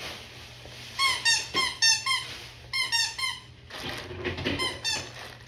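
Squeaky dog toy being squeezed by a dog in quick bursts of short, high squeaks, several bursts over about two and a half seconds, followed by a brief rustle.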